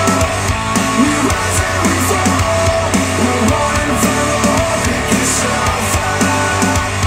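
Recorded music played through Polk Audio XT15 bookshelf speakers driven by a Yamaha A-S301 integrated amplifier. It is an instrumental passage with a stepping bass line, steady drum hits and guitar, and no vocals.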